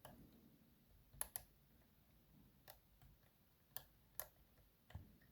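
Faint, sharp metallic clicks, about six spread over a few seconds, from a hook pick lifting pins inside a 6-pin Ruko pin-tumbler lock that has barrel-shaped security pins.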